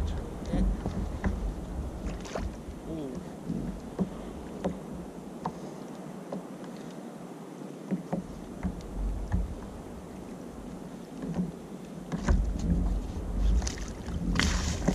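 Water sloshing against a plastic sit-on-top kayak, with a low rumble of wind on the microphone that drops away for a few seconds in the middle and small clicks from the rod and reel while a squid is played on the line. A splashy burst comes near the end as the landing net goes into the water.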